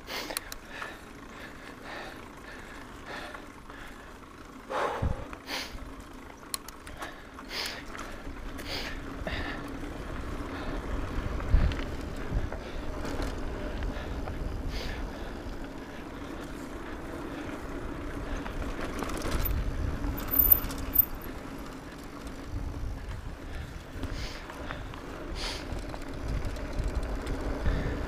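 Mountain bike running downhill on a dirt trail: tyres rolling over dirt, with scattered sharp clicks and rattles from the bike and a few heavier low rumbles.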